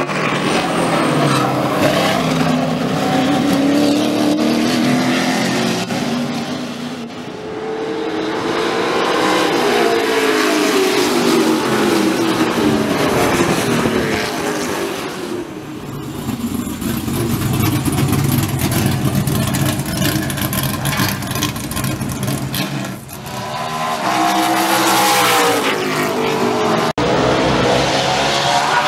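V8 racing engines running hard, their pitch repeatedly climbing and falling, with three brief lulls in between.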